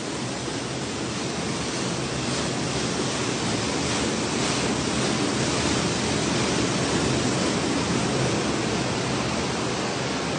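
Water gushing from a burst pipe and cascading down concrete stairs: a steady, unbroken rush of water.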